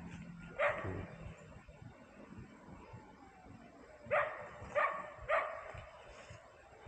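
A dog barking: a single bark about a second in, then three barks in quick succession about four seconds in.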